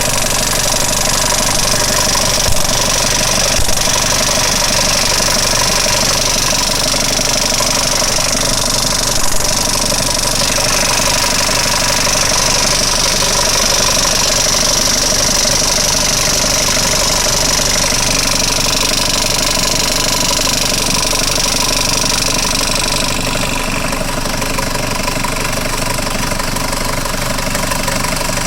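UAZ Hunter diesel engine running with a knock from its Bosch VE distributor-type injection pump. The knock is a sign of fuel starvation: it stops when fuel is helped along with the hand priming pump, and it was cured by replacing the fine fuel filter.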